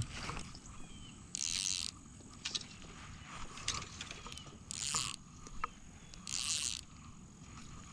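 Outdoor ambience by a pond: three short hissing rustles of about half a second each, over a steady thin high whine with a few faint chirps.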